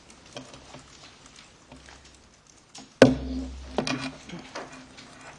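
Handling noise on a lectern microphone: faint scattered clicks, then one loud thump about three seconds in with a short low rumble, followed by a few more sharp clicks.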